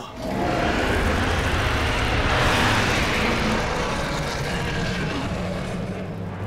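Film sound effect of two tyrannosaurs roaring, an adult and a juvenile: one long, loud, noisy roar that swells to its peak about two to three seconds in and then slowly fades.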